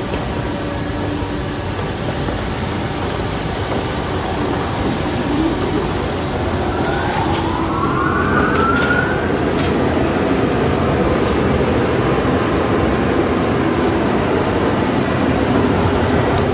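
Tunnel car wash machinery running: spinning cloth wrap-around brushes scrubbing a car on the conveyor, with water spray, as a loud steady wash of noise. A whine rises in pitch from about five to nine seconds in, and the noise grows a little louder after that.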